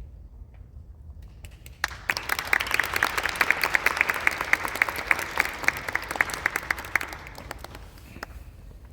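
Audience applauding: clapping breaks out about two seconds in, holds steady for about five seconds, then dies away to a few scattered claps near the end.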